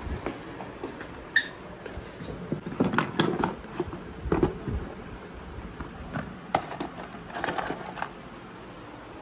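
A beard trimmer's cardboard box being opened and handled: scattered clicks, taps and rustles of the packaging and the plastic tray of attachments, in irregular clusters with the busiest stretch about three seconds in.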